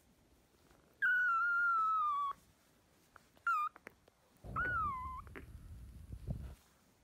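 Kitten mewing three times in a high-pitched voice: one long, slightly falling mew about a second in, a short mew, then a falling mew with a low rumble under it.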